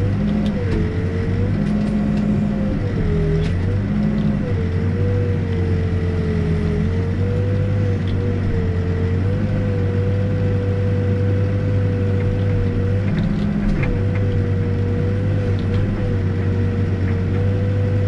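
Backhoe loader's diesel engine running steadily, heard from inside the cab while the backhoe arm digs, with a whine that wavers in pitch for the first few seconds and then holds steady.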